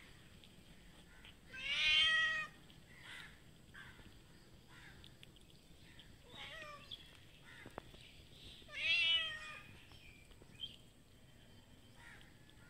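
Domestic street cats meowing: two loud drawn-out meows about seven seconds apart, with a fainter meow between them.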